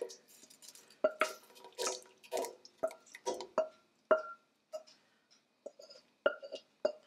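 A wooden spatula scraping thick cream soup out of a stainless steel saucepan into a stockpot: a string of short, irregular scrapes and soft plops. Some strokes carry a brief metallic ring from the pan.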